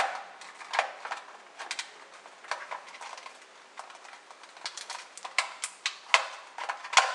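Irregular plastic clicks and knocks of D-Link DHP-200 powerline adapters being handled: one pulled out of a power strip socket with a sharp click at the start, and the other picked up and lined up with the socket.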